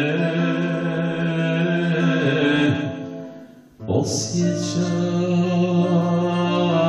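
A man singing with acoustic guitar accompaniment, holding long notes. The music fades almost away a little under four seconds in, then comes back in with a sharp chord.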